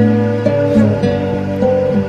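Gentle instrumental background music: held notes over a low bass, changing every half second or so.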